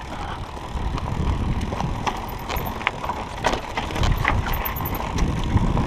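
Mountain bike rolling down a rutted dirt trail: tyres crunching over dirt and loose stones, with scattered clicks and knocks from the bike rattling over the bumps over a steady low rumble.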